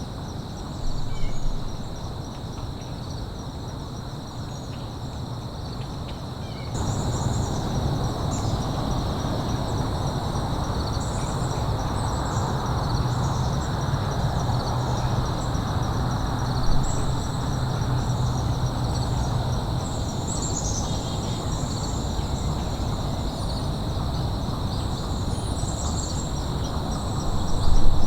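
Outdoor ambience of insects trilling steadily, with scattered short bird chirps and a low hum underneath. The whole sound gets louder abruptly about seven seconds in.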